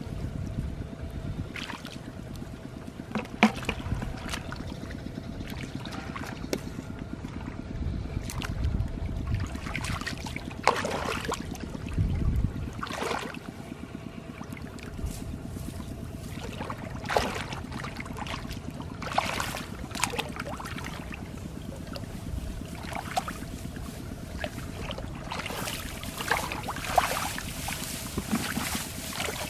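Hands and legs splashing and sloshing in shallow muddy water, in irregular bursts, over a steady low rumble.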